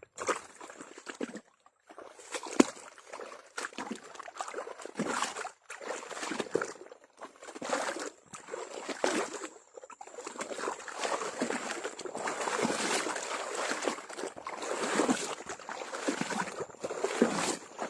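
Water sloshing and trickling in irregular splashes as an eel trap net is pulled through and out of shallow water.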